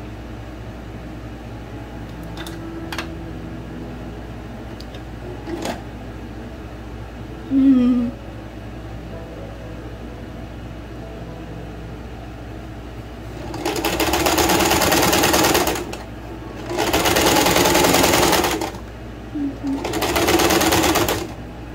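Electric home sewing machine stitching in three short runs of about one to two seconds each, with short stops between them, in the second half. It is being walked slowly through four layers of gathered linen.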